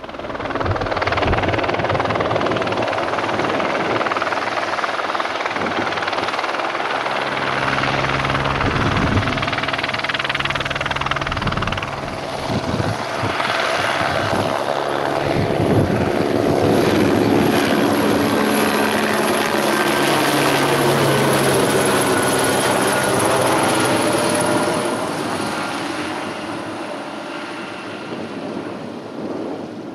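Aérospatiale AS350B Écureuil helicopter at full power lifting off and flying close past, its single turbine whining over the beat of the rotor blades. The sound fades over the last few seconds as it climbs away.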